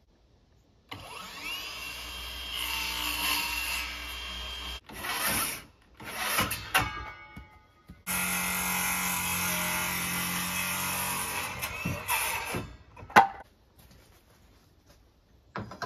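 A small electric motor running in bursts: one run of about four seconds, two short bursts, then a second run of about four seconds. A single sharp click comes near the end.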